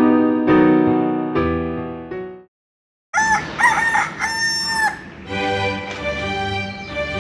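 A rooster crowing once, cock-a-doodle-doo, about three seconds in, used as a sound effect for morning. Before it, piano music fades out into a brief silence, and light background music starts after the crow.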